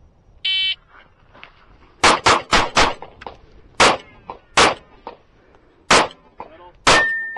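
Electronic shot-timer start beep, then a Sig Sauer P365 9mm pistol firing eight shots. A quick string of four comes about two seconds in, then four more spaced out, with a brief ringing tone after the last shot.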